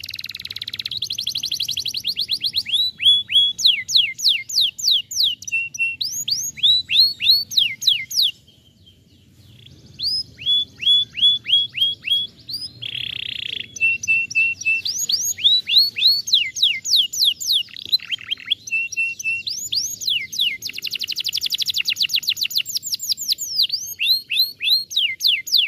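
Domestic canary singing: fast rolls of repeated down-sweeping whistles, switching from one trill to the next, with a short break about eight seconds in and a brief harsh buzzy note around thirteen seconds.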